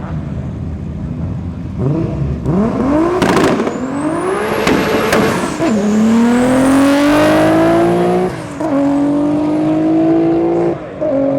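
Drag-racing car launching from the start line on a solo run and accelerating hard. The engine revs up about two seconds in, then climbs in pitch through the gears, with three upshifts, each a sudden drop followed by another rising pull.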